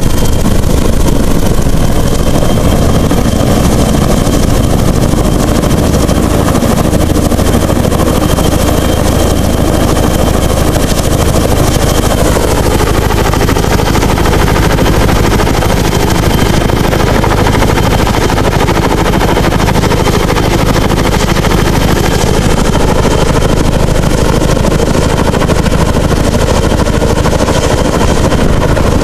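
Tandem-rotor helicopter hovering low overhead: loud, continuous rapid chop of its twin rotors with engine whine, a whine sliding down in pitch about halfway through.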